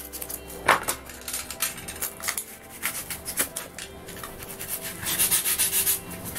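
A pencil marking and then a utility knife cutting into a block of styrofoam: scratchy rubbing strokes, quickest and densest about five seconds in.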